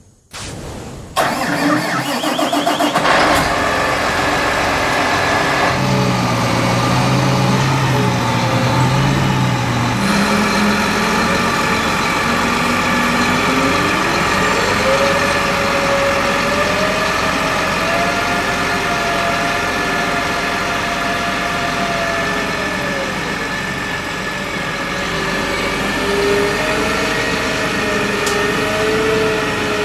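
John Deere 8370RT track tractor's diesel engine running under load, starting abruptly about a second in. Its pitch rises about halfway through and drops back a few seconds before the end.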